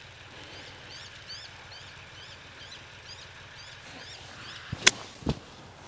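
A golf iron strikes the ball on a short pitch shot with one sharp click about five seconds in, followed by a duller knock a moment later. A bird calls repeatedly with short chirps in the background before the shot.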